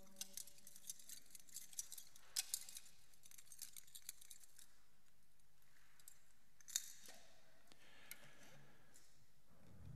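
Faint, scattered small clicks and metallic clinks in a quiet church, several in the first four seconds and a louder one just before seven seconds in.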